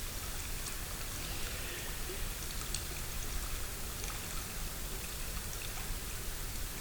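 Steady hiss of outdoor background noise, water-like, with a few faint short ticks scattered through it.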